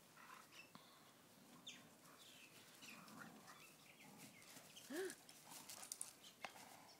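Two dogs playing tug of war with a toy, faint, with a short whine that rises and then falls about five seconds in.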